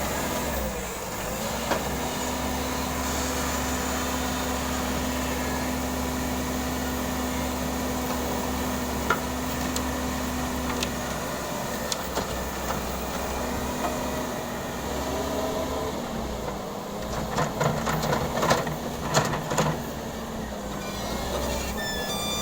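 Heavy construction machine engine running steadily, with a cluster of clanks and knocks about three-quarters of the way through.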